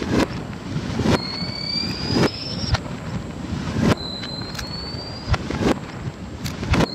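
Fireworks shells bursting, played backwards: each bang swells up out of its own echo and cuts off sharply, about one a second. Twice a shell's whistle rises slowly in pitch and stops dead.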